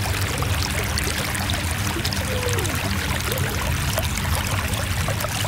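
Steady rushing noise with a low hum beneath it, unbroken throughout.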